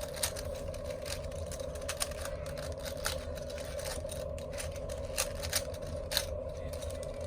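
Plastic 4x4 Rubik's cube being turned by hand, its layers giving irregular quick clicks and scrapes as edge pieces are paired, over a steady background hum.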